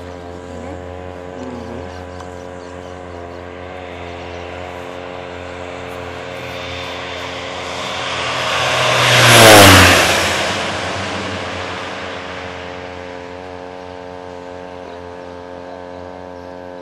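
Air Tractor 502 agricultural turboprop making a low spraying pass. Its engine and propeller grow steadily louder to a peak about ten seconds in as it flies right past, the pitch dropping sharply as it goes by, then fade away.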